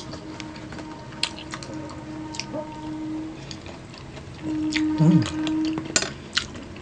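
Mukbang eating sounds: plastic spoons clicking against plastic takeout trays, with chewing. A low, steady closed-mouth hum runs underneath, louder with a drop in pitch about five seconds in.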